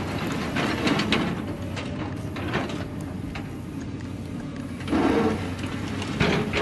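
Small electric motor of a cardboard model tractor running with a steady hum, with irregular clicks and knocks from its mechanism and a louder rattle about five seconds in.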